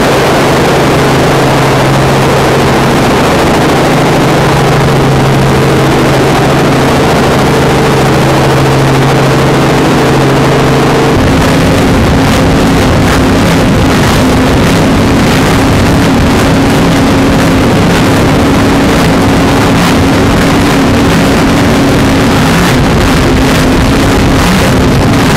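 Steady motorboat engine drone, changing abruptly about 11 seconds in to a powerboat running at speed across the water, with wind buffeting the microphone.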